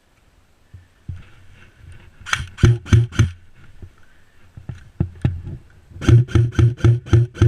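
Footsteps picked up by a body-worn camera: a few quick steps, some single steps, then a steady run of about four or five footfalls a second, each a dull thud with a sharp crack on top.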